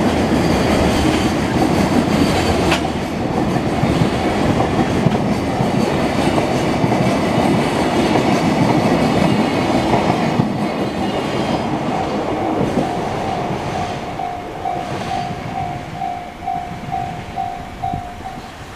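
A train passes over a level crossing, its running noise fading after about ten seconds. As it dies away, the crossing's electronic warning bell comes through: a single tone dinging about twice a second.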